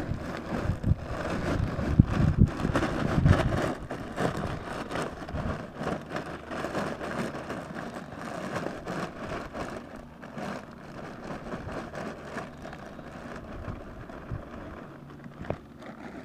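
Shredded wood mulch pouring out of a plastic bag onto a fabric landscape tarp, with the bag's plastic crinkling. Heavy thumps in the first few seconds as the bulk drops out, then a thinner rustling trickle that fades toward the end as the bag empties.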